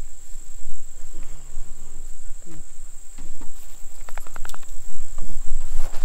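Steady high-pitched drone of insects in the surrounding vegetation, over a low rumble. There is light handling noise and a short rattle of clicks about four seconds in.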